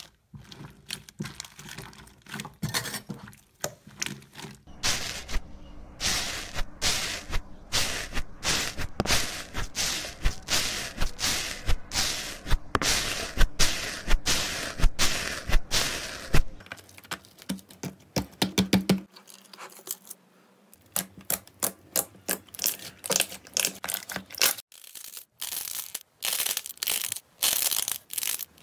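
Slime and green foamy slime pressed and squished right against a microphone: dense, irregular crackling and popping. The texture changes abruptly several times as one short clip cuts to the next.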